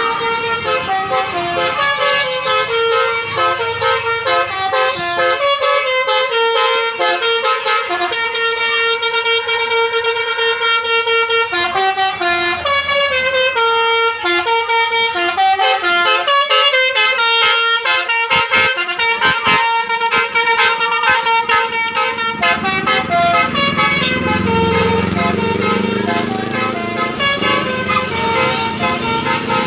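Basuri telolet bus horn playing a long melody of quick stepped horn notes, with a falling glide about halfway through. A low rising rumble comes in underneath for the last several seconds.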